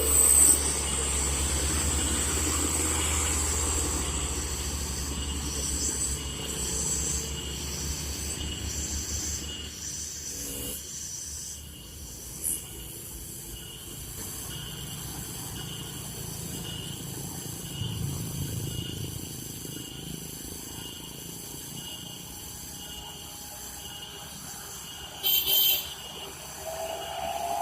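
Heavy truck's diesel engine working close by with a low pulsing rumble that fades away over the first ten seconds or so, leaving quieter road background with two short sharp high sounds. Near the end another engine rises in pitch.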